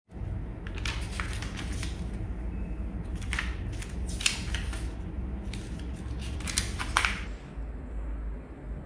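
Paper rustling as the pages of a printed user-manual booklet are handled and turned, in four short crisp spells within the first seven seconds, over a steady low hum.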